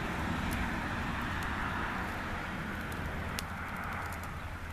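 A pile of twigs, leaves, paper and plastic burning hard, with a steady rushing hiss of flame, scattered sharp crackles and a low rumble underneath.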